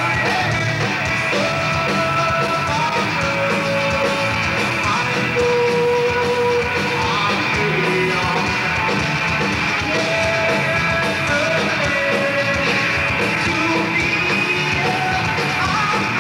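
Live rock band playing: two electric guitars, bass guitar and a drum kit, with the singer singing into a microphone over them. The sound is loud and steady, with held melodic notes over the dense band sound.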